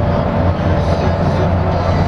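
LiAZ-5292.65 diesel bus cruising at highway speed, heard from inside the cabin: a steady low drone of engine and road noise with a steady whine running through it.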